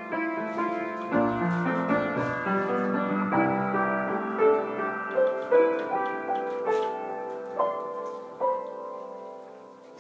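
Upright piano played by hand, several notes sounding at a time. The last notes are struck about eight and a half seconds in and left to ring and fade away.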